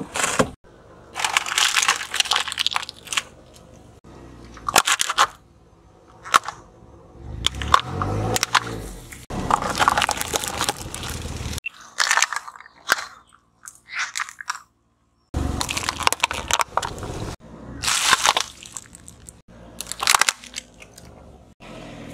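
Car tyres rolling over and crushing a string of objects on asphalt, among them a plastic toy figure. The result is a run of separate crunching and cracking bursts, each a second or two long, with short quieter gaps between them.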